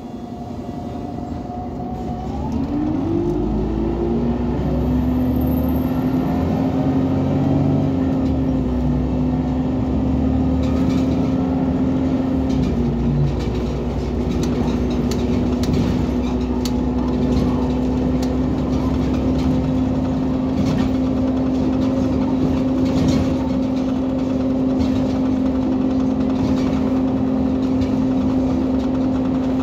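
Irisbus Citelis 18 articulated bus's Iveco Cursor 8 natural-gas (CNG) engine running with the bus standing still. A few seconds in, a whine rises in pitch and the sound grows louder, then it settles into a steady hum.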